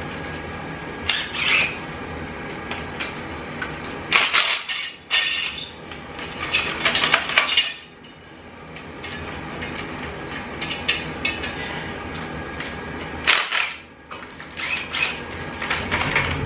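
Hand tools and loose metal engine parts clinking and scraping in several short, irregular bursts over a steady background noise, as a small-block Chevy engine is being stripped down.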